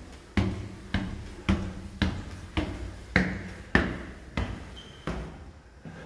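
Footsteps climbing stone stairs and stepping onto a stone floor: about nine sharp steps, nearly two a second, each with a short echo, stopping about five seconds in.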